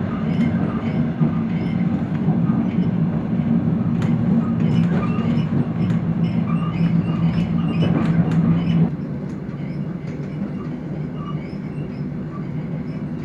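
Diesel train under way, heard inside the carriage: a steady low engine drone over the running noise of the wheels. About nine seconds in the drone drops away abruptly and the ride noise becomes quieter.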